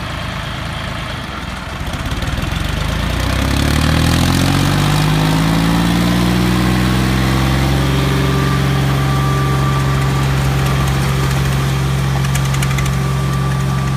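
Diesel tractor engine in a tug-of-war pull, revving up over about two seconds and then held steady at high revs under load.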